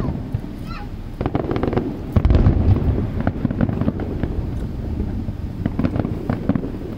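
Fireworks display: a dense run of crackling pops and bangs, with a heavy low boom about two seconds in and a faint whistle near the start.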